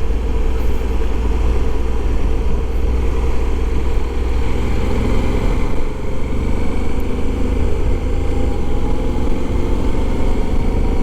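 Honda Africa Twin 1100 motorcycle's parallel-twin engine running while riding, under heavy, steady wind rumble on the helmet camera's microphone.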